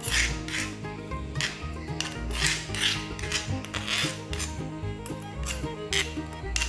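A metal spoon scraping tofu sambal out of a stone mortar (cobek) onto a metal plate: a run of irregular scrapes and clinks, several a second.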